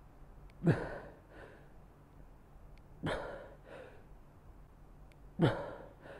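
A man breathing out hard with a short grunt on each squat rep under dumbbell and band load, three times about two and a half seconds apart. Each is followed by a softer breath in: laboured breathing from exertion.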